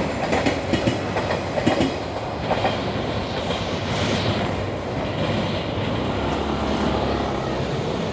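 Freight train's wagons rolling past over the level crossing, wheels clacking sharply over the rail joints for the first couple of seconds, then running on as a steadier rumble.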